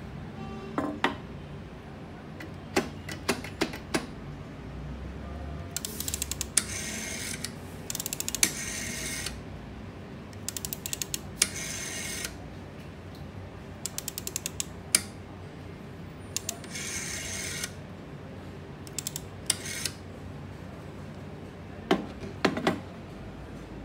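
Rotary dial of an old black desk telephone wound round and let go about five times, each return a quick run of ratchet clicks and a short whirr. Near the end a few knocks as the handset is set back on its cradle.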